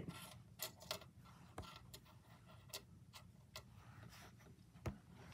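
About seven faint, light clicks and taps, unevenly spaced, the loudest near the end: jewelry and a hand being set down and moved on a stone countertop.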